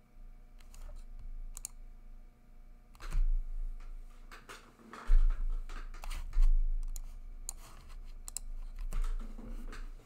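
Irregular clicking and tapping on a computer keyboard, with a few dull thumps against the desk.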